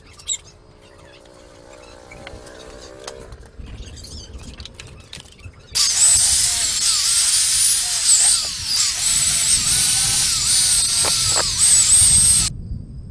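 Handheld electric grinder fitted with a buffing wheel, polishing a bare aluminium crankcase cover: a loud high-pitched motor whine that starts suddenly about six seconds in, wavers in pitch as the wheel is pressed on the metal, and cuts off abruptly near the end.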